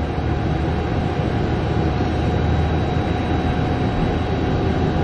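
MRI scanner's motorised patient table driving out of the bore: a steady mechanical hum and rumble with a faint steady tone over it.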